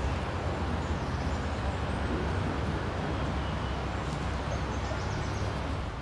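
Steady outdoor background noise: a low rumble under an even hiss, with a few faint high chirps about a second in and again near the end.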